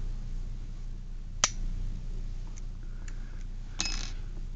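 Sharp metallic clicks from a just-picked Hampton pin-tumbler lock and the lock picks being handled: one crisp click about a second and a half in, a few faint ticks, then a short rattle of clicks near the end, over a low steady hum.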